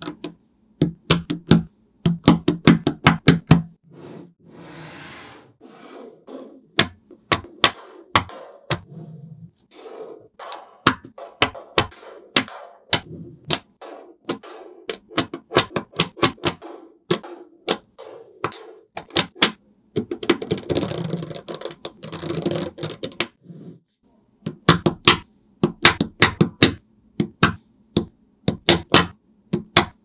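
Small magnetic balls clicking sharply as they snap together and are pressed onto a layered sheet of balls, in quick irregular runs of clicks, with a few longer stretches of rattling as strips of balls are slid into place.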